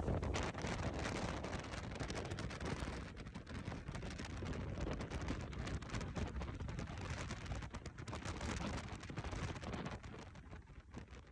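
Hurricane-force wind gusting and buffeting the microphone in a rough, rumbling roar, easing somewhat near the end.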